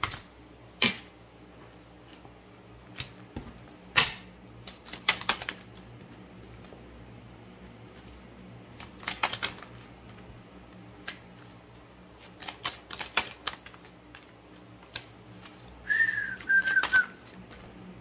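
Oracle cards being handled and shuffled: clusters of quick clicks and flicks every few seconds. A short whistle-like tone comes near the end.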